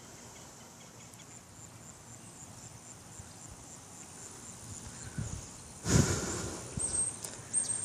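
Insects chirping at a high pitch in a steady, even pulse of about three chirps a second. About six seconds in, a short loud bump cuts across it.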